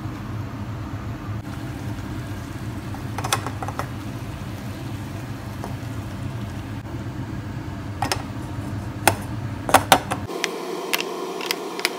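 Sugar-and-water syrup boiling in an aluminium pot on a gas burner as it caramelizes, over a steady low hum. Scattered sharp clicks and taps come mostly near the end.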